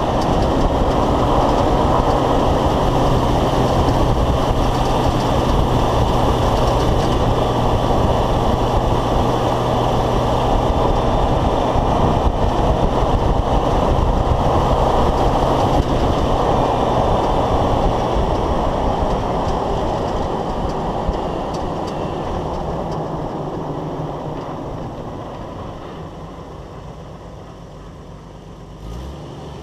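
Driving noise of a 1995 Jeep Wrangler YJ heard from under its chassis: tyres on pavement, wind and drivetrain running steadily at road speed, then fading over the last ten seconds or so as the Jeep slows down.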